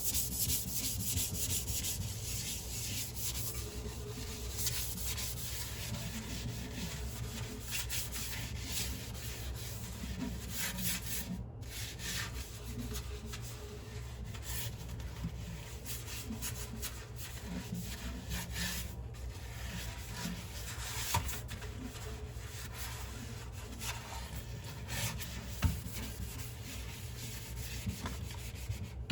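Dishes being scrubbed by hand, a continuous scratchy rubbing with a couple of brief breaks.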